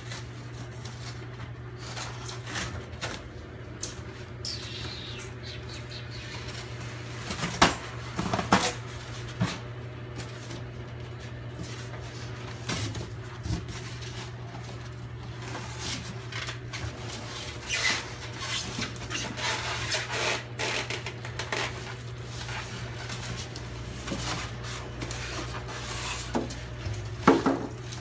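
Cardboard box and packing being handled while a boxed air compressor is unpacked: scattered rustles, scrapes and knocks of cardboard flaps and plastic wrap, the loudest knocks about eight seconds in and again near the end, over a steady low hum.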